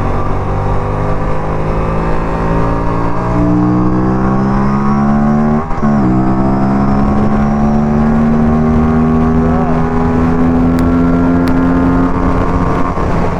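Aprilia RS 457's parallel-twin engine under hard acceleration, its pitch climbing through a gear, dropping sharply at an upshift about halfway through, then climbing again in the next gear.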